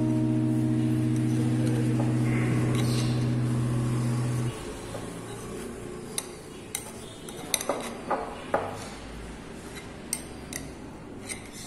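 Metal knife scraping and clinking against the inside of a glass bowl as it is run around a baked fruit cake to loosen it, with a string of sharp clinks in the second half. Before that, background music holds one chord and stops about four and a half seconds in.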